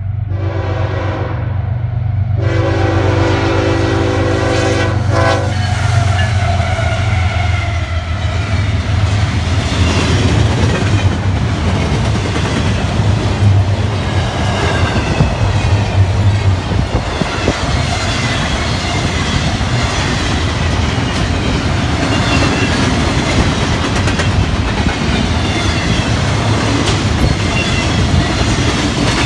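Diesel freight locomotive horn sounds a short blast and then a long one of about three seconds, the close of the signal for a grade crossing. The locomotives' engines rumble past, followed by the steady rolling noise and clatter of double-stack intermodal container cars on the rails.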